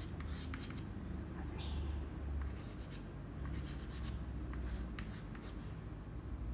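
Soft pastel stick scratching and rubbing across pastel paper in short, irregular strokes, over a low steady hum.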